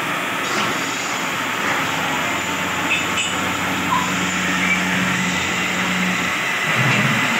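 Motor-driven wood lathe spinning a large wooden vessel while a hand-held gouge cuts its outside: a steady scraping of the cut over the machine's low hum.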